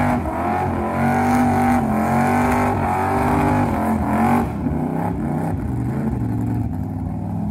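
Chevrolet Express van's engine revving hard during a tyre-smoking burnout, its pitch rising and falling as the throttle is worked, then easing back a little about four and a half seconds in.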